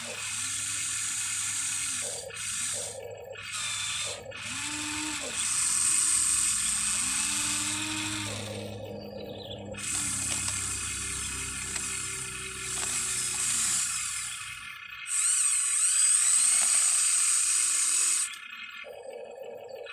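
Huina 1593 RC excavator's small electric motors and gearboxes whirring in a series of runs that start and stop abruptly, from about a second to several seconds long with short pauses between, pitch sliding as the motors speed up and slow down as its functions are worked. The longest and loudest run comes near the end.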